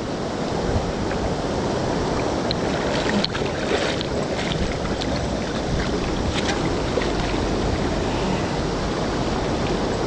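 Steady rushing of a fast river's current, with a few faint clicks in the middle.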